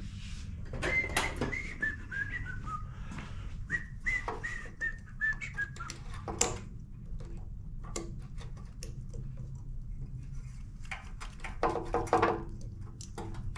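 Someone whistling: two runs of short notes stepping down in pitch. Then metal clicks and taps from pliers and a screwdriver working at a small engine's carburetor linkage, loudest about halfway through and again near the end, over a steady low hum.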